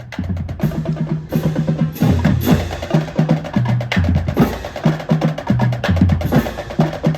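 Intro music: a fast, steady percussion beat over a bass line.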